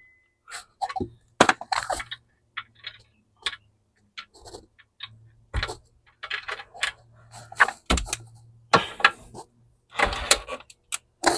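Small metal clinks, taps and scrapes of a steel washer and mounting bolt being fiddled into place on a lawnmower engine's mounting flange, irregular and stop-start, with a few louder rattles near the end.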